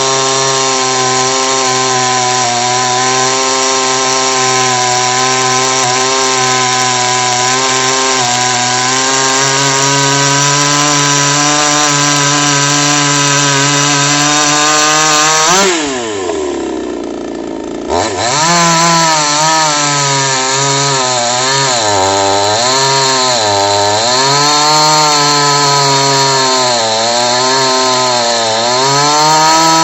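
Chinese 52cc two-stroke chainsaw engine running steadily at high revs. About halfway through the revs drop sharply to a low idle for a couple of seconds, then climb back and rise and fall repeatedly with the throttle.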